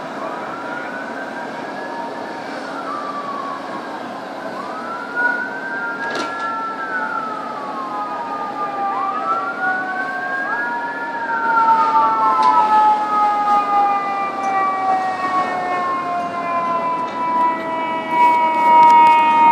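Fire engine sirens. One wails, rising and falling about every four to five seconds, over a second siren's long tone that slowly drops in pitch. The sirens grow louder near the end, with a few sharp clicks.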